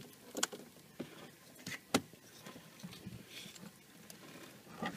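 Hands unwrapping a bundled car wiring harness: scattered light clicks, taps and rustles of wire and plastic, the sharpest click about two seconds in.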